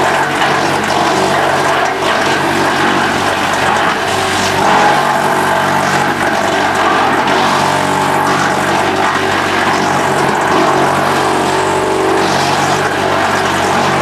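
Skorpion 500EB stationary drum wood chipper running under load while chipping wood: a loud, steady machine drone with a dense hiss over it, unbroken throughout.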